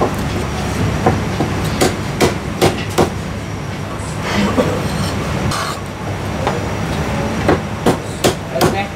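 Heavy Chinese cleaver chopping marinated goose liver on a thick wooden chopping block: sharp knocks of the blade into the wood, a quick run of about five in the first three seconds and four more near the end. A steady low rumble of background noise runs under the knocks.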